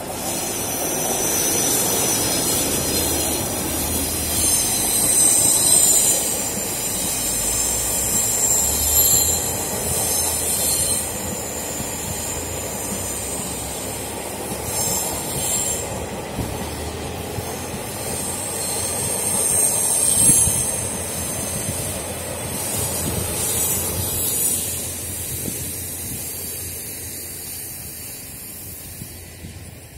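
Fu-Hsing-class passenger train passing through a station without stopping: steady wheel-and-rail running noise with high-pitched wheel squeal coming and going. The sound fades near the end as the train moves away.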